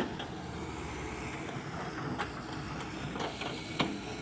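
Excavator's diesel engine running steadily, with a few sharp knocks or clanks, the loudest near the end.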